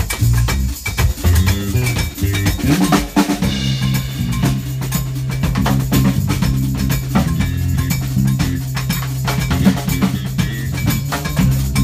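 Drum kit playing a busy groove of snare, rimshots and bass drum. About three and a half seconds in, a steady low note from an electronic keyboard comes in and holds underneath the drums.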